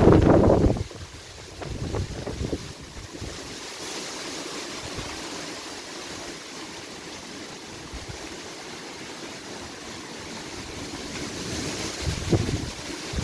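Gusty storm wind buffeting the microphone in strong blasts at the start and again near the end, with a steady rushing hiss between the gusts.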